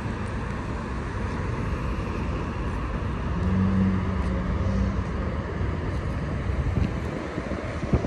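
Road traffic on a busy multi-lane city street: a steady rush of passing cars, with one vehicle's engine hum standing out for a second or two about halfway through.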